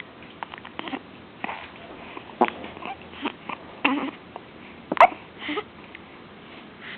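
Repeated hiccups: short, sharp catches coming irregularly, roughly one a second, the loudest about five seconds in.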